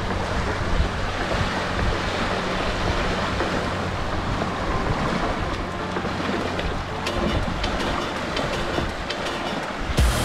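Small waves washing onto a shell-and-pebble beach, with wind on the microphone.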